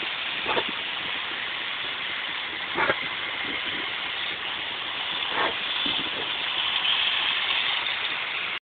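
Garden hose spray nozzle hissing steadily, with three short louder splashes, about a second in, near the middle and past halfway, as a large dog bites at the spray to drink.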